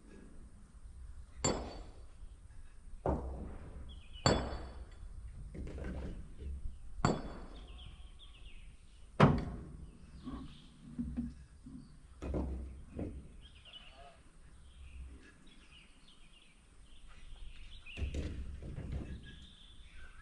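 A series of sharp metallic clanks and thunks, one every one to three seconds in the first half and then further apart, the loudest about nine seconds in, over a low steady rumble.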